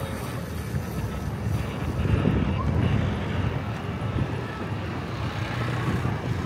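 Steady low rumble aboard a river tour boat under way: the boat's engine drone mixed with wind on the microphone.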